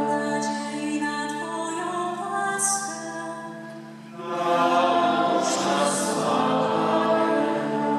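Unaccompanied female voice chanting a Polish Catholic litany: two sung phrases with a short breath break about four seconds in.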